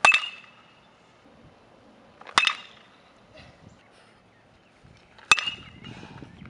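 A metal baseball bat hitting baseballs three times, a few seconds apart. Each hit is a sharp crack followed by a brief high ring.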